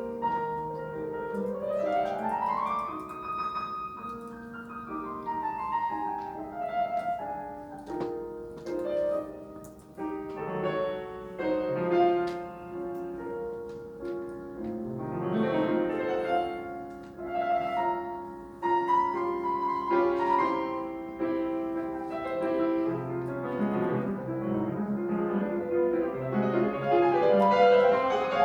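Classical piano performance, with a fast rising run of notes a couple of seconds in.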